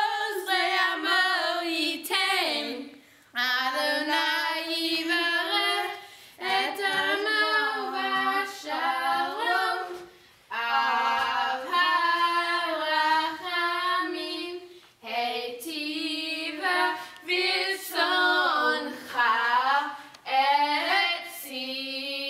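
Two girls singing a prayer from the siddur together, unaccompanied, in sung phrases of a few seconds with short breaks between them.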